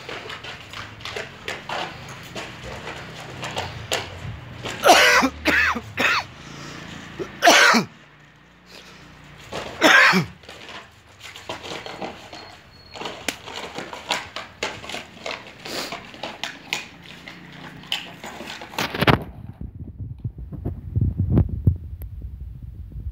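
A person coughing in several loud, short bursts over the first half, with light scuffling and clicks between them. Near the end the sound turns to a muffled low throbbing.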